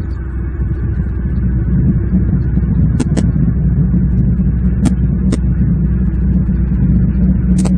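Steady low outdoor rumble, with a few sharp clicks, some of them in quick pairs, about three seconds in, around five seconds and near the end.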